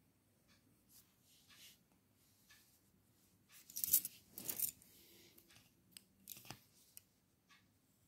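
Graphite pencil scratching on drawing paper in short strokes. Louder rustling scrapes come about four seconds in and again around six seconds, as the hand and sheet are moved.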